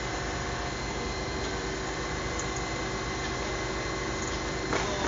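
Camera drone's motors and propellers whirring steadily, a constant hum with a few thin steady tones over a rushing hiss. A single faint knock comes near the end.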